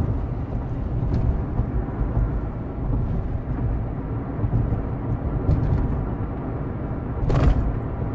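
Car driving, a steady low engine and road rumble, with a short rushing sound about seven seconds in.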